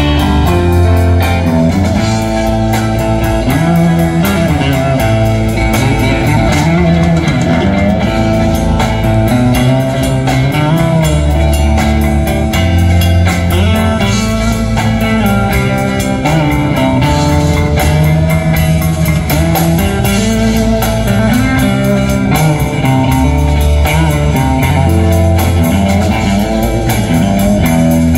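Live rock band playing: electric guitars over bass and drums, with a lead guitar line of bent, gliding notes over a steady low bass line.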